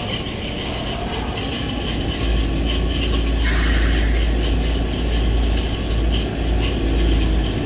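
Industrial machinery running in a cylinder-sleeve production shop, a dense, steady mechanical noise. A heavy low rumble comes in about two seconds in and holds until just before the end.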